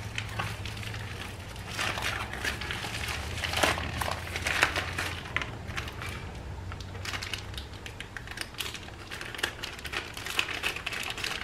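Plastic packaging crinkling and rustling in bursts as small AN hose fittings in their bags are handled and unwrapped.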